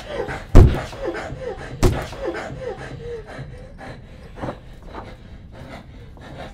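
Two heavy thuds about a second and a quarter apart, with a person's short, strained gasping cries repeating about twice a second around them; the gasps then fade to quieter breaths and small knocks.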